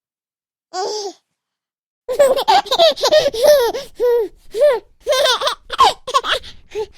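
A baby laughing: one short giggle about a second in, then, after a silent gap, a long run of rapid, breathy belly laughs starting about two seconds in.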